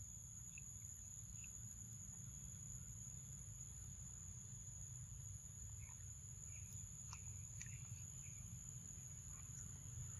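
Faint steady high-pitched insect drone, two unbroken tones, over a low outdoor rumble, with a few small scattered clicks and chirps in the second half.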